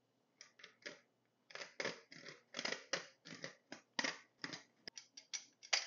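Tin hand-held flour sifter being worked over a bowl, sifting flour with salt and baking soda: a quick, uneven run of short scraping strokes, a few per second, starting about half a second in.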